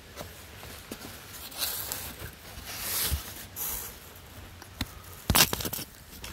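Footsteps and rustling through wet leaf litter as a person walks between beehives, with a short cluster of sharp knocks about five seconds in.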